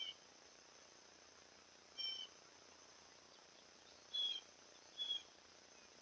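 Faint steady chorus of crickets or other insects, with four short, high chirps from an animal calling twice at the start and twice near the end.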